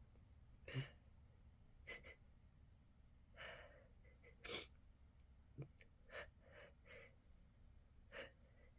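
A person's quiet, short breathy gasps and sighs, about ten of them, with one longer breath near the middle. These are the hitching breaths of someone fighting off an oncoming sneeze.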